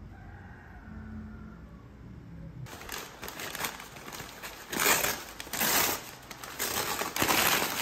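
Paper takeout bags and a paper receipt crinkling and rustling as they are handled, in irregular bursts that start suddenly after a couple of seconds of low room hum, loudest in the second half.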